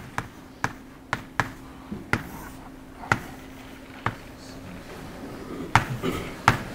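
Chalk tapping and knocking against a chalkboard while an equation is written: about a dozen sharp, irregular taps.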